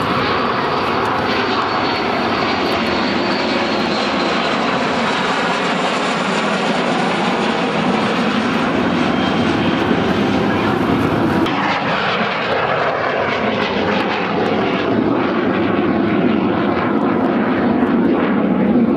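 Jet noise from Kawasaki T-4 trainers' twin IHI F3 turbofan engines as the aircraft fly past overhead. It is loud and steady. A little past halfway the sound turns duller and its pitch slides downward as they pass.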